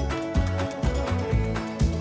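Background music with a steady bass beat.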